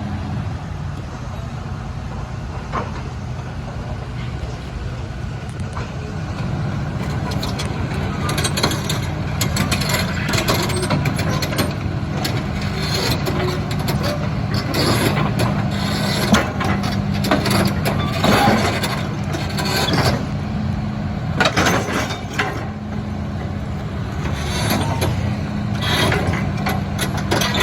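Hydraulic excavator's diesel engine running steadily, with repeated metallic clanks and knocks starting about eight seconds in as the machine works its way down off a lowbed trailer.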